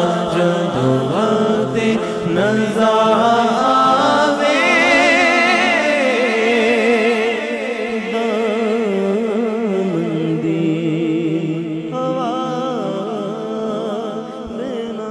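A man singing a Punjabi naat, a devotional song praising the Prophet, solo into a microphone with no accompaniment: long drawn-out melismatic notes with a wide vibrato, easing off somewhat in loudness after about seven seconds.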